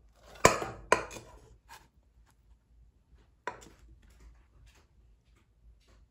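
Two frying pans clanking against each other as a pan cake is flipped from one into the other: a sharp clank about half a second in and another half a second later, then lighter clatter and one more knock a few seconds in as the pan is set down.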